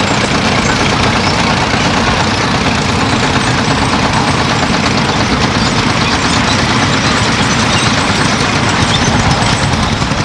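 Vintage tractor engines running as tractors drive across a field, heard as a dense, steady rumble and hiss.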